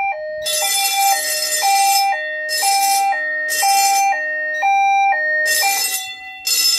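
A fire alarm bell ringing in half-second bursts, three at a time, over a two-note evacuation alert tone that steps between a higher and a lower pitch about every half second from an EST Genesis speaker strobe.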